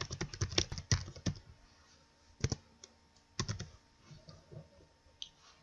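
Typing on a computer keyboard: a quick run of keystrokes in the first second and a half, then a few scattered keystrokes.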